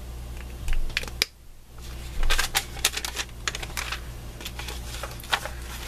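Paper envelopes and a plastic craft mat being handled and moved: a run of small clicks, crinkles and rustles, loudest about two seconds in, over a low steady hum.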